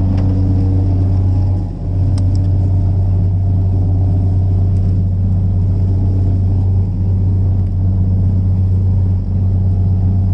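Fishing charter boat's engine running steadily under way, a loud, even low hum, with a couple of light clicks near the start and about two seconds in.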